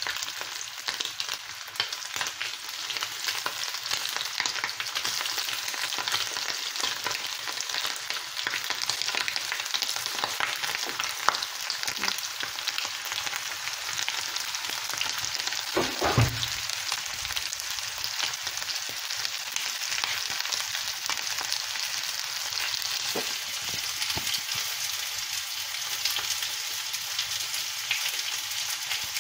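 Chicken pieces sizzling and crackling steadily in hot oil in a frying pan, with more raw pieces going into the oil. One dull knock just past halfway.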